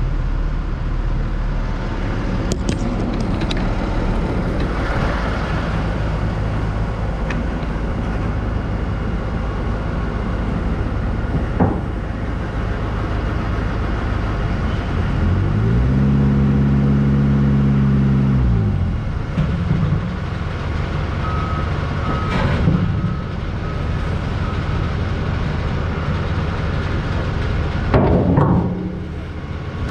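Forklift engine running at idle, rising in pitch for about three seconds midway and then settling back to idle, with a few sharp clicks and knocks.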